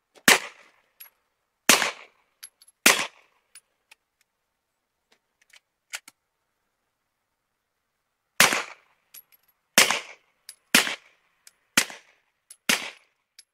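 Suppressed 9mm pistol shots from a Taurus G3 Tactical fitted with a Rugged Obsidian 45 suppressor on a 9mm end cap. Three shots about a second apart, a pause of about five seconds, then five more at roughly one a second.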